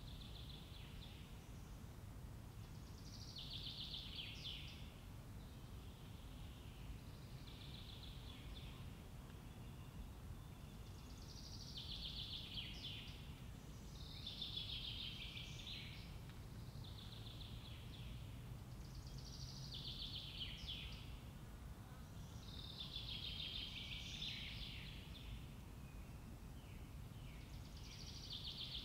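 A bird singing short, bright phrases about every two to four seconds, faint over a steady low background rumble.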